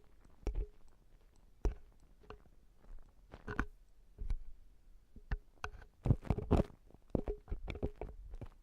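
Ear-cleaning tools scraping and tapping inside a silicone ear model, picked up very close. Short irregular scratches and clicks come about every half second, bunching into a busier run of scraping around six to seven seconds in.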